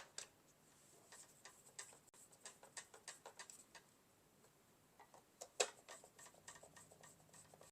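Faint clicks and light ticks from plastic robot-vacuum parts being handled and fitted together. There is a sharper click at the start and another about five and a half seconds in, with a run of small ticks between them.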